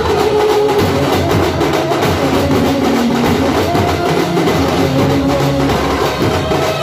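Banjo party street band playing: many drummers beating large drums in a dense, driving rhythm, with a melody of held notes over the drumming.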